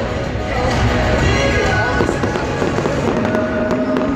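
Fireworks going off in quick succession, many small crackles and bangs, with music playing alongside.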